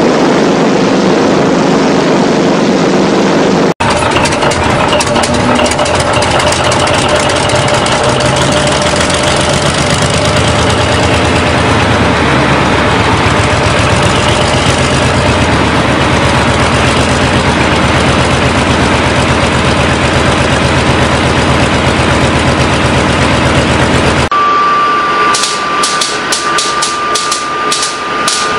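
Large engine running for the first few seconds, then a Paxman 60-litre V12 diesel running steadily for about twenty seconds. For the last few seconds a Westinghouse J34 turbojet is starting: a steady high whine with about three sharp ticks a second, typical of the igniters firing.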